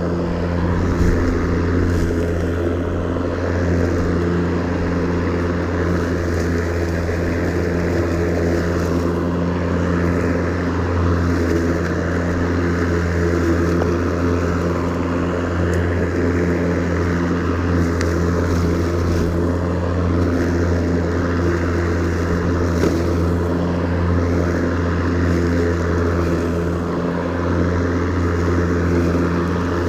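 Ryobi 40-volt cordless 20-inch lawn mower running as it cuts grass, its battery-powered motor and spinning blade making a steady, unbroken hum with several steady tones.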